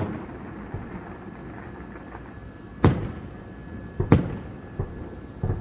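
Aerial fireworks bursting: a string of separate bangs, the two loudest about three and four seconds in, with weaker ones between.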